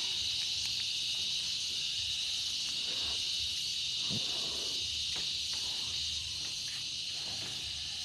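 A steady, high-pitched drone of insects, a chorus of cicadas or crickets, with no change in pitch or rhythm.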